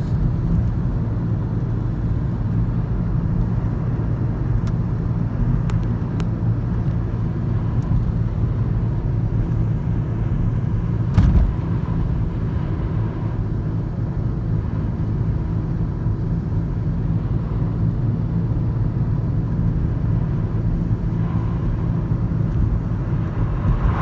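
Steady road and engine noise heard from inside a moving car's cabin, a low rumble of tyres and engine, with a single short thump about halfway through.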